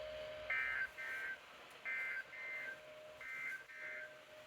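Emergency Alert System SAME header from a NOAA Weather Radio broadcast: three short bursts of shrill digital data tones about a second and a half apart, with a faint steady tone underneath. The header marks the start of a new alert message.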